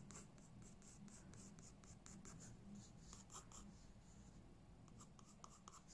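Pencil strokes on drawing paper: faint, short scratching marks in several quick bursts as guideline lines are sketched.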